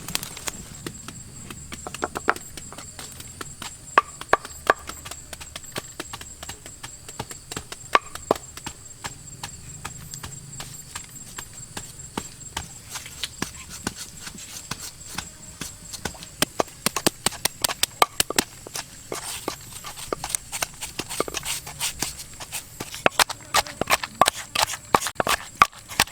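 Irregular sharp clicks and knocks, sometimes single and sometimes in quick runs, thickest past the middle and near the end, over a steady high thin whine.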